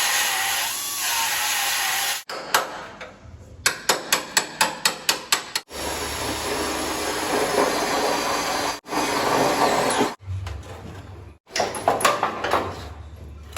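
A quick run of hammer blows on metal, about four a second, and a few more near the end, between stretches of a steady rushing noise.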